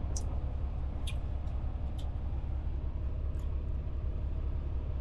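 Semi-truck engine idling, a steady low rumble heard from inside the cab, with a few faint light clicks over it.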